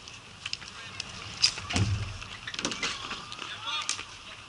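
Ball hockey play: sticks clacking against the ball and each other in a run of sharp knocks, with one heavier thump a little under two seconds in. Players shout near the end.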